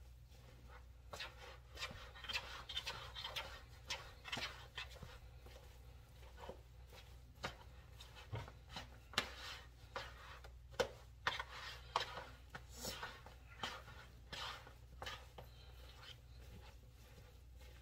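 Serving spoon scraping and knocking against a mixing bowl in irregular strokes as stock-soaked bread stuffing is mashed and mixed.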